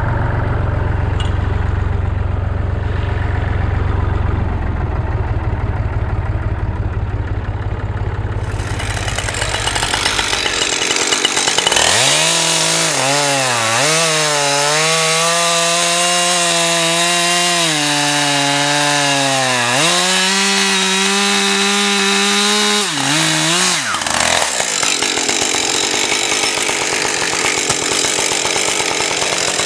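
A Massey Ferguson 35 tractor's engine idling, then a Husqvarna 545 Mark II two-stroke chainsaw at full throttle bucking a log. The saw's pitch dips several times as the chain bites into the wood, and falls back about two-thirds of the way through.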